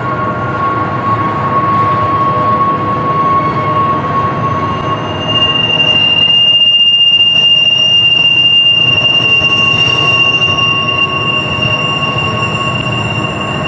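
Loaded double-stack intermodal well cars rolling past on a sharp curve, their wheel flanges squealing against the rail over a steady rumble of wheels. A lower squeal sounds at first, and a louder, higher squeal comes in about five and a half seconds in and holds.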